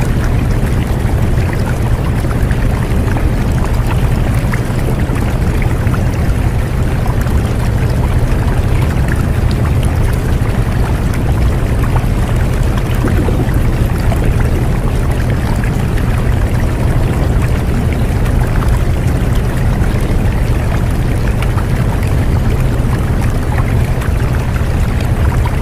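Steady, unbroken rushing noise like running water, with a heavy low rumble beneath it. This is the masking track of a subliminal audio, which is meant to hide quiet spoken affirmations beneath it.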